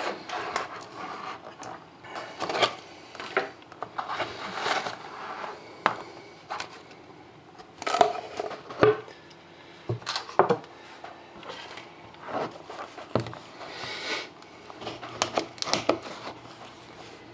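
A knife slitting the tape seal on a sealed trading-card box, with irregular scrapes, swishes and light clicks as the box is handled and turned.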